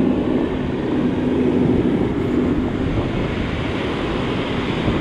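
Surf breaking and washing up the beach, with wind buffeting the action camera's microphone. A low steady hum sits under it and fades out about halfway through.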